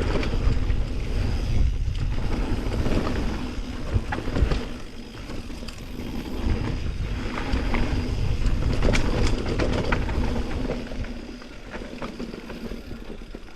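Mountain bike rolling fast down a trail: wind buffets the microphone over a heavy, uneven rumble, with scattered clacks and rattles as the bike hits bumps. It grows quieter over the last couple of seconds.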